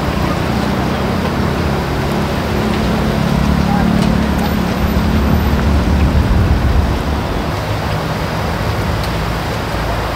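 Battered potato pieces sizzling in a large wok of hot oil, over street noise with voices. A low vehicle rumble swells in the middle and fades again.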